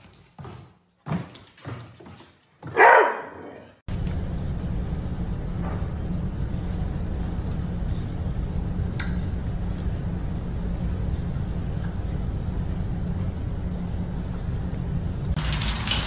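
A dog's paws thump and click on a hardwood floor as it runs, then the dog barks once loudly about three seconds in. After that comes a steady low rumble, and a hiss joins it near the end.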